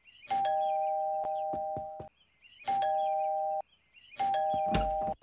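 Two-tone ding-dong doorbell chime rung three times in quick succession, each ring opening with a click; the second and third rings are cut off abruptly. A short low thump comes near the end.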